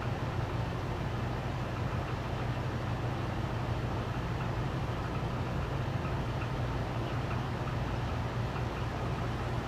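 Steady low mechanical hum, even throughout with no distinct events.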